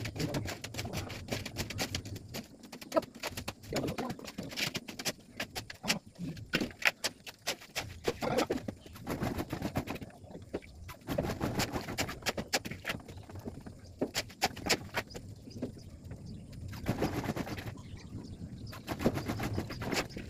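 Rapid, irregular clicks and knocks of hand tools working on a sliding gate's frame, some in quick runs.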